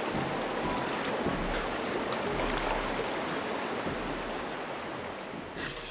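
Mountain river water rushing over rocks, with splashing from a person sitting in the current. The sound eases off a little toward the end.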